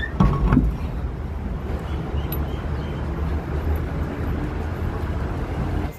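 Steady low rumble of an engine running, with a few metal knocks and clinks about half a second in as steel wheel nuts are handled on the truck wheel.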